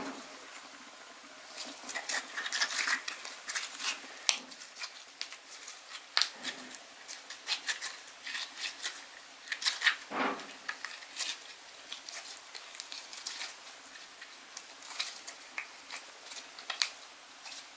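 Slime being squished and pressed by hand, giving dense, irregular sticky clicks and crackly pops, starting up after about a second and a half.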